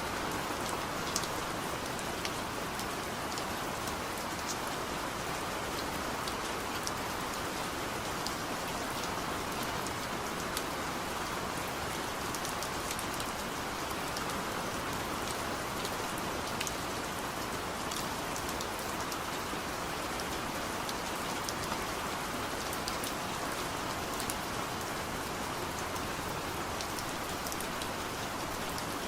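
Steady rain, a dense even hiss with many small drop ticks scattered through it.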